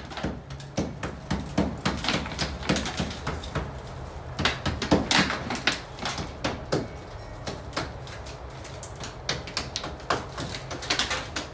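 Hand tool chipping and scraping stucco off a window header: irregular knocks and scrapes, some in quick runs, over a steady low hum.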